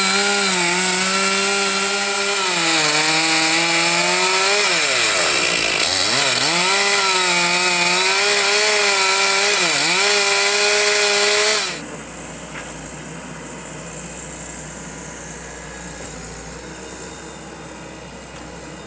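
Two-stroke chainsaw running at high revs, cutting into a thick willow stump, its engine note dipping twice under load and picking back up, then stopping suddenly about two-thirds of the way through. The bar is too short to cut through the stump.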